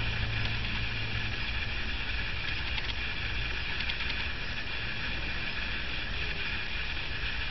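Steady background hiss with a low hum underneath: room noise with no distinct event.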